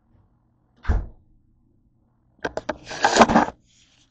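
A single dull thump about a second in, then a run of clicks and a loud scraping, rubbing rustle near the end: handling noise as the recording camera is picked up and moved across the counter.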